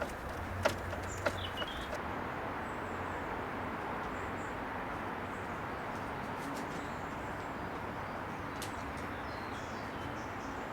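Steady outdoor background hiss with faint, high bird chirps now and then, and a few light knocks in the first couple of seconds.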